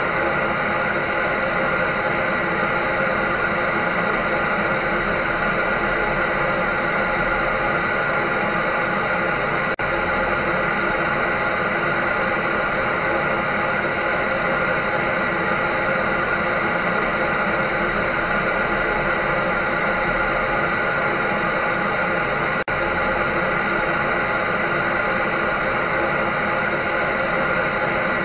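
A dryer running steadily: an even rush of air mixed with the steady hum and whine of its motor. The sound drops very briefly about ten seconds in and again about twenty-three seconds in.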